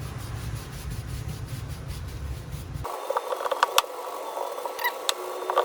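A brush scrubbing the leather rim of a steering wheel, a rubbing, scraping sound, with a few sharp clicks in the second half.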